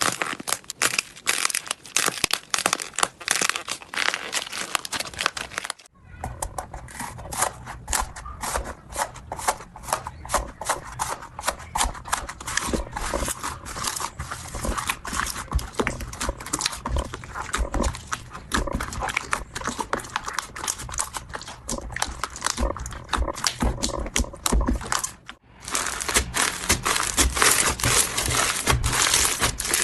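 Slime being squeezed, stretched and poked by hand, giving dense crackling and popping. In the middle stretch it turns wetter and lower, a squelching sound. The sound breaks off briefly about six seconds in and again near the end.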